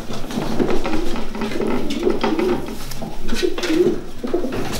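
Racing pigeons cooing continuously, their low warbling calls overlapping one another.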